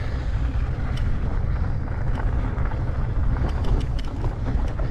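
Steady low rumble of wind buffeting and ride vibration on the bike-mounted action camera as a fat-tire electric bike rolls through slushy snow, with a few faint ticks.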